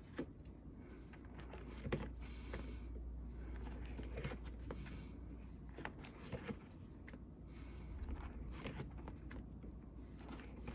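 Plastic binder sleeve pages full of photocards being turned and handled: faint rustling of the plastic with scattered light clicks and taps.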